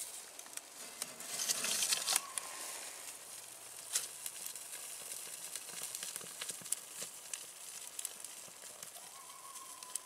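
Kindling fire of pine feather sticks and birch bark catching in a woodstove, crackling with scattered sharp pops. A hissing rush about a second in is the loudest part.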